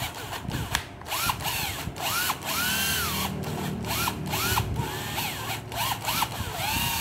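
Hitachi WH12DM2 12V cordless impact driver running free in short bursts. Its motor whine rises and falls again and again as the trigger is squeezed and let go, cutting in and out rather than running smoothly. The seller puts this down to dirty battery contacts and a dirty trigger giving poor electrical contact.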